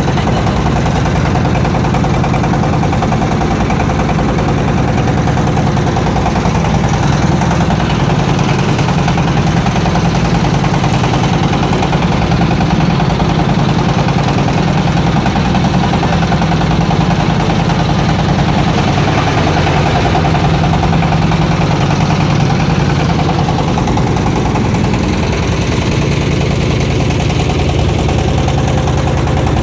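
Small motorboat's engine running steadily at an even speed, a loud low drone while the boat moves across the water.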